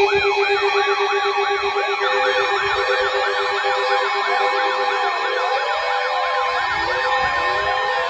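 Several electronic sirens sounding at once, each yelping rapidly up and down about three times a second. A steady pulsing beep runs underneath and stops about five seconds in, and more sirens join about two seconds in.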